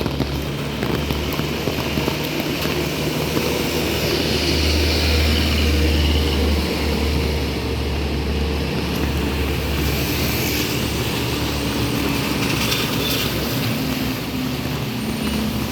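Rain falling steadily, under a low, continuous engine rumble from vehicles on the road.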